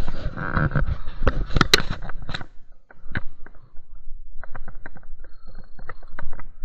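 Footsteps through tall, dry grass and weeds: close rustling with stems snapping and crackling, dense for the first two and a half seconds, then scattered crackles again in the last two seconds.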